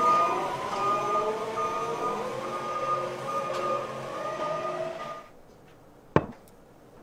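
Forklift running, with a high beeping warning tone over lower whining motor tones; the sound cuts off about five seconds in. Near the end comes a single sharp knock as a glass bottle is handled on a table.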